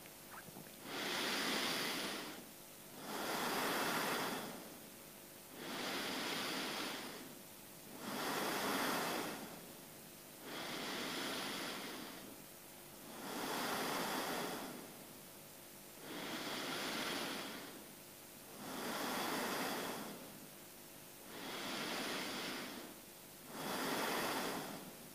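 A person's slow, deep belly breathing, audible in and out: even rushing swells about every two and a half seconds, roughly ten breath strokes in a row.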